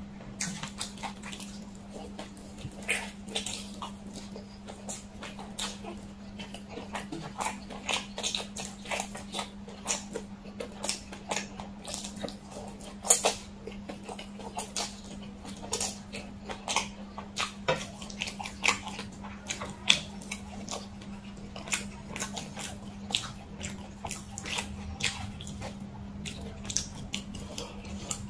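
Close-miked eating: many short, wet mouth clicks of chewing and slurping spicy fire noodles, with a steady low hum underneath.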